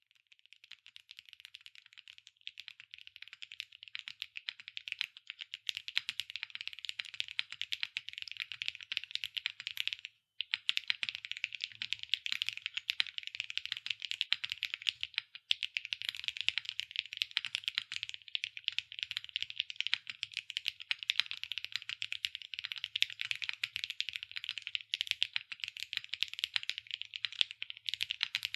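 Fast, continuous typing on a QK75N mechanical keyboard with Kailh BCP linear switches, PBT keycaps and an aluminium plate: a dense stream of key clacks, with two brief pauses about ten and fifteen seconds in.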